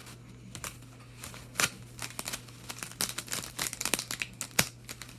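Crinkling and tearing of a hockey card pack's wrapper as it is opened: a run of short sharp crackles that grows busier about three seconds in, over a faint steady hum.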